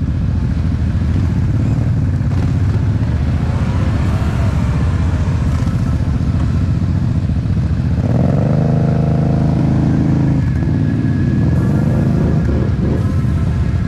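ATV engine running steadily while riding a muddy trail. About eight seconds in, a louder engine note rises in pitch and holds for about two seconds before dropping back.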